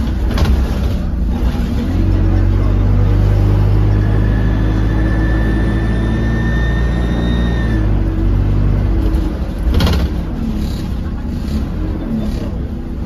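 Double-decker diesel bus engine heard from inside the lower deck, pulling harder from about two seconds in with a steady low drone, while a high turbo whistle sounds from about four to eight seconds, the turbo leak this bus is noted for. A sharp knock from the body comes near the start and another near ten seconds.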